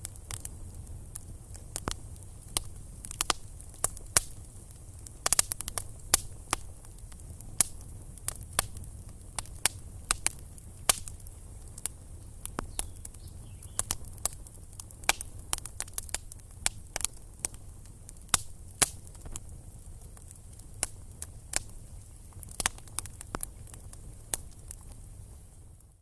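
Campfire of sticks crackling: sharp, irregular pops and snaps, a few each second, over a steady low rumble.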